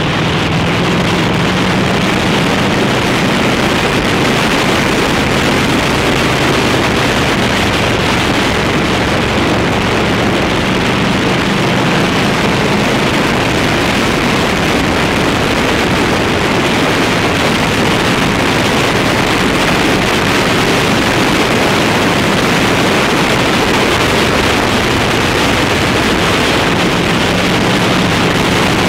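Loud, steady wind rush over the microphone of a Harley-Davidson Road King at road speed, with the bike's V-twin engine droning steadily underneath.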